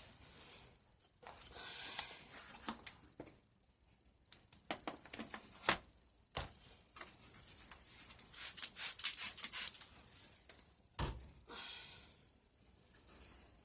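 Hands cleaning and handling things around a toilet: scattered clicks and knocks, rubbing and rustling, and one dull thump about eleven seconds in.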